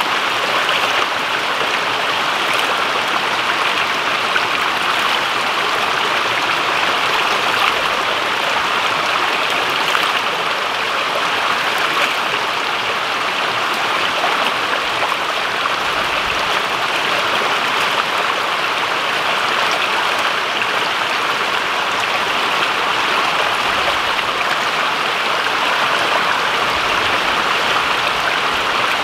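Shallow forest stream running steadily over rocks, with occasional splashes of hands scooping water.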